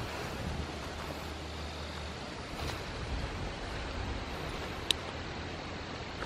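Steady outdoor background noise with a low rumble underneath, and one short high chirp about five seconds in.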